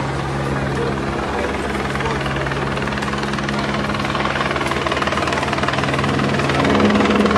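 Helicopter flying overhead: a steady drone whose pitch shifts near the end.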